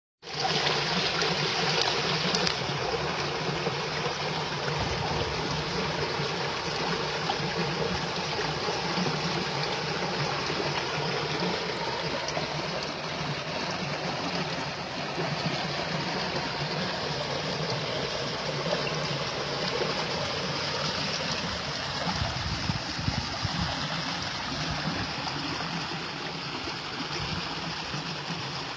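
A steady, even rushing noise that holds throughout, with a low hum beneath it.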